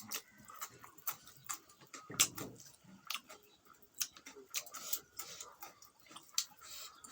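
Close-miked eating: irregular wet clicks and smacks of chewing pork fat, with a louder, fuller bite or chew about two seconds in.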